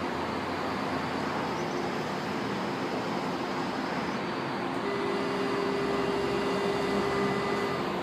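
Metro train standing at the platform with its doors open, giving a steady hum and hiss. About five seconds in, a steady door-closing warning tone sounds for about three seconds as the doors begin to shut.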